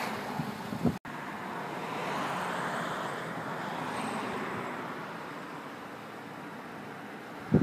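Wind buffeting the microphone for about a second, broken off by an abrupt cut. Then the road noise of a passing vehicle: a steady hiss that swells and slowly fades.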